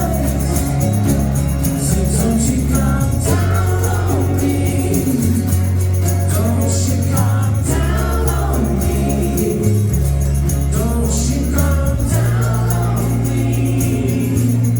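Live acoustic rock band performance: singing over guitar, with low bass notes changing every second or two.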